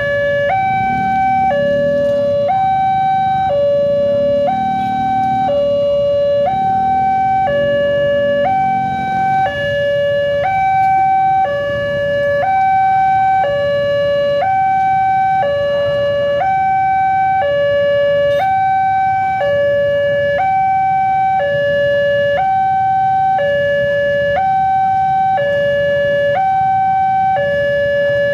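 Railway level-crossing warning alarm from the signal's loudspeaker: an electronic two-tone sounding, switching between a lower and a higher pitch about every two-thirds of a second. It warns that a train is approaching and the crossing is closed.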